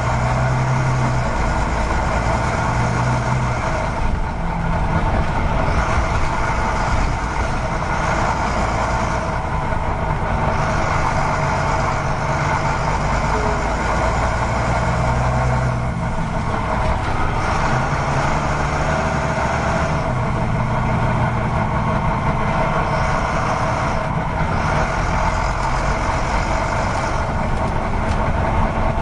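Heavy truck engine running steadily, a sound laid over toy trucks that have no motor of their own. A higher hiss comes and goes every few seconds.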